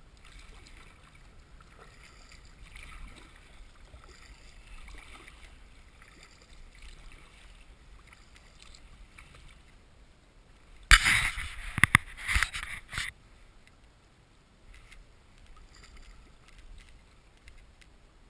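Kayak paddle strokes swishing and splashing softly in lake water every second or two. About eleven seconds in, a loud two-second burst of rustling with several sharp knocks.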